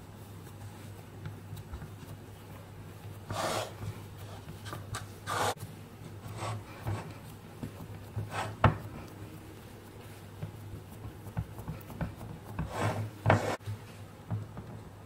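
Fingers pressing and smoothing shortcrust pastry dough into a metal pie pan: soft rubbing and scraping of dough against the metal, with a few sharp knocks, the loudest a little past the middle. A low steady hum runs underneath.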